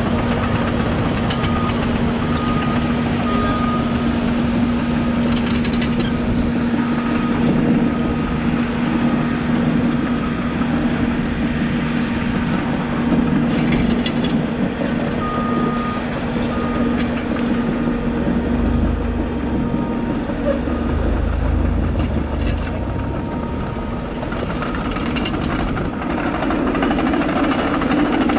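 Engines running steadily with a constant low hum, while a backup alarm on heavy landfill machinery beeps on and off in short runs. A deeper rumble swells up through the middle of the second half.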